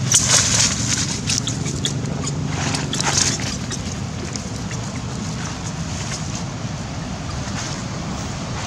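Wind buffeting the microphone, a steady low rumble, with two short crackly bursts: one in the first second and another about three seconds in.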